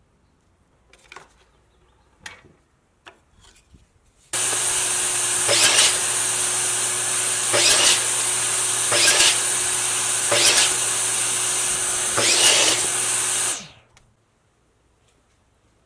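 Compound miter saw switched on and running steadily for about nine seconds, its blade cutting through thin lattice-moulding strips five times, each cut a louder surge, before it is switched off and stops quickly. A few light knocks of wood being handled come before the saw starts.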